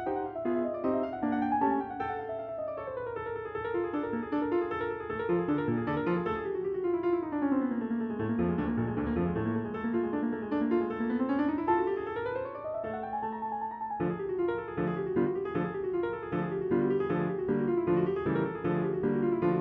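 Background piano music with quick runs of notes sweeping up and down the keyboard, changing to a new passage a little past the middle.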